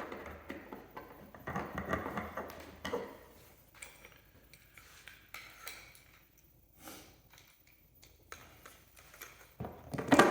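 Hand assembly with a Phillips screwdriver: scraping and light clinks as a screw is driven and parts are handled, then quieter ticking, and a single loud knock near the end as a piece is set down.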